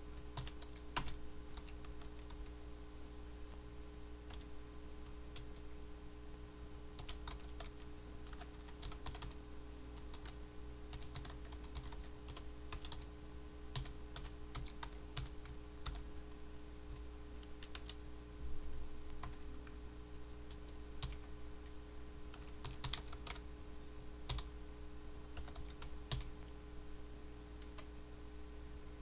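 Typing on a computer keyboard: irregular runs of keystrokes with short pauses between, over a steady low electrical hum.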